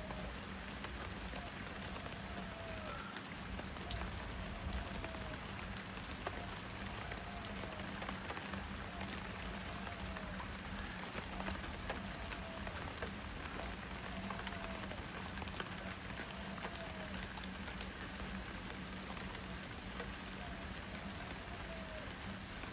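Steady rain falling and pattering on the garden plants. A faint short call repeats about every two seconds or so behind it.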